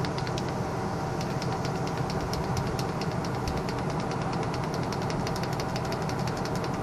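A machine running steadily, with an engine-like hum and a fast, even ticking of about eight ticks a second.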